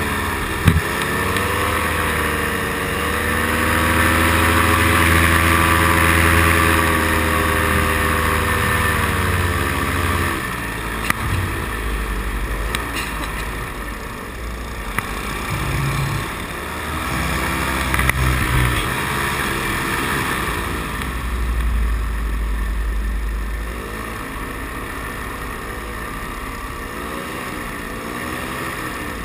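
Paramotor engine and propeller running hard in flight. The pitch holds high for the first ten seconds, drops as the throttle comes back, then wavers and climbs again near the end. Wind rushes over the microphone throughout.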